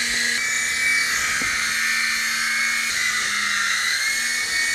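Small remote-control toy helicopter hovering, its electric motor and spinning rotor blades giving a steady high whine. The pitch dips slightly about three seconds in, then climbs back.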